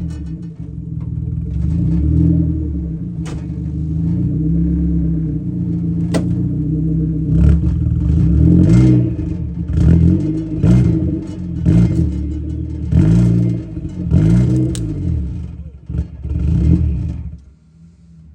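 Car engine revving repeatedly, its pitch rising and falling in blips about once a second through the second half, with a few sharp clanks. It stops abruptly near the end.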